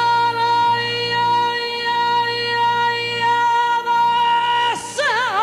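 A female copla singer's voice holding one long, steady note for about five seconds, then breaking into a fast, wavering melismatic run near the end.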